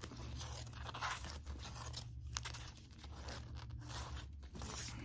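Plastic-bagged comic books rustling and crinkling as they are flipped through by hand in a cardboard box, in quick irregular rustles over a steady low hum.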